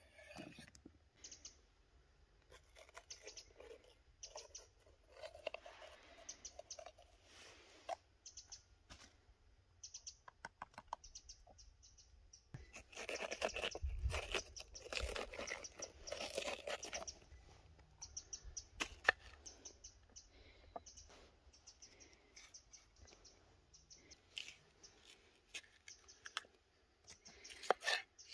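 Kitchen knife cutting vegetables on a wooden board: scattered soft slices and taps through tomatoes, a burst of crisp cutting midway as the knife cuts out a green pepper's stem, and sharper knocks on the board near the end as the pepper is sliced into strips. Birds chirp faintly in the background.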